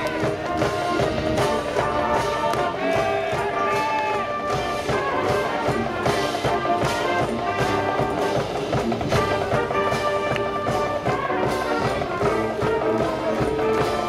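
School wind band playing live, brass (trumpets and trombones) carrying the tune over a steady drum beat.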